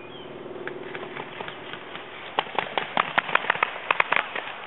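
Rapid paintball marker fire: faint scattered pops at first, then a fast string of sharp pops, several a second, from about halfway through.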